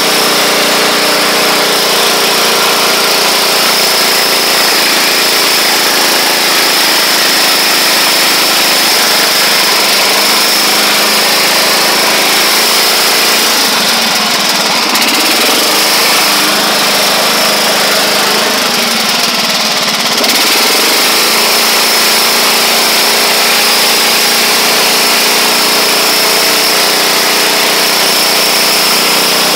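A 1979 Roper lawn tractor's 8 hp engine running steadily under load while the tractor drives through snow. For several seconds midway its pitch wavers up and down as the engine speed changes, then it settles back to a steady note.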